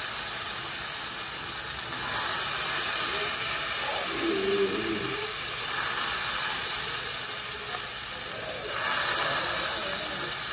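Hot frying pan with bacon fat sizzling and hissing, the hiss swelling three times as tong-loads of wet pasta go into the pan.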